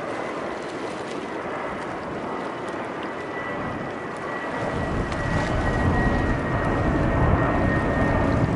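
Airbus A320 airliner flying on approach with its landing gear down: steady jet engine noise with a thin high whine that drifts slightly lower. About halfway in, a louder low rumble comes in.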